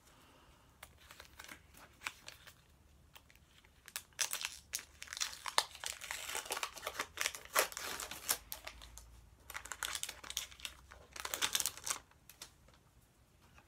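Thin plastic sticker-packet wrapper crinkling as a pack of stickers is handled and opened by hand: scattered crackles at first, then dense crinkling about four seconds in and again about ten seconds in.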